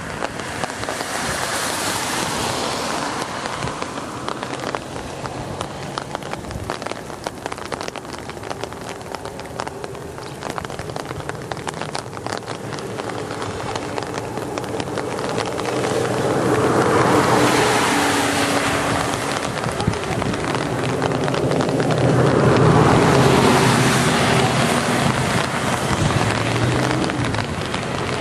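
Torrential rain pouring down, with strong wind gusts hitting the microphone and swelling loudly several times. From about halfway, a steady engine hum runs underneath.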